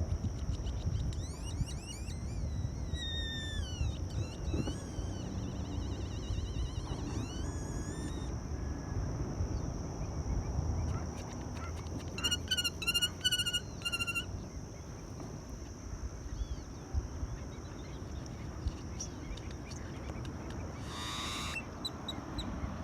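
Flock of waterbirds calling in bouts: wavering, gliding calls in the first few seconds, another short bout about eight seconds in, and rapid repeated calls around the middle. Under them runs a steady low rumble of wind and water, with a constant thin high tone. A brief hiss comes near the end.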